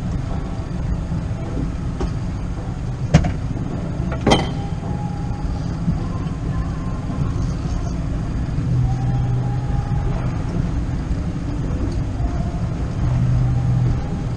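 Wind rumbling steadily on the microphone aboard a small boat. There are two sharp knocks, about three seconds in and again a second later, and a low hum rises twice in the second half.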